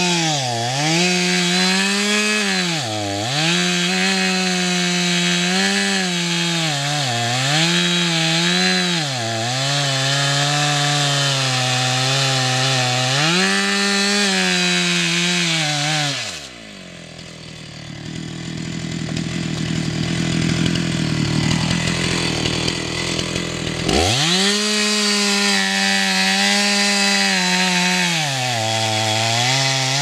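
Two-stroke chainsaw cutting into a tree trunk, its engine pitch dipping again and again as the chain bogs down in the wood. About halfway through the revs fall away to a quieter idle for several seconds, then it is revved up sharply and cuts on.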